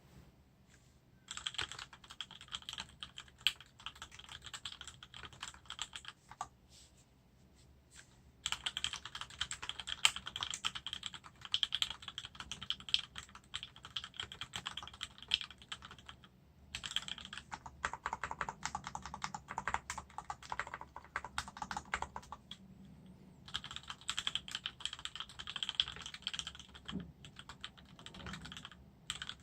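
Typing on a 60% mechanical keyboard with linear Gateron Black switches on 62 g springs and JT purple keycaps: rapid keystroke clacks in bursts of several seconds, broken by brief pauses.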